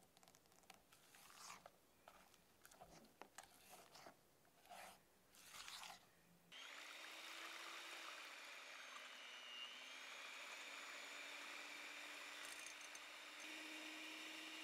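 A few soft, irregular handling noises, then, about six and a half seconds in, an electric hand mixer starts a steady whir as its twin beaters whip cold egg whites in a glass bowl at medium-high speed. Its pitch wavers slightly and steps up a little near the end.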